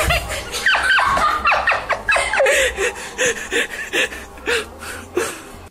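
A person laughing in short gasping bursts, each falling in pitch, two or three a second, growing fainter near the end.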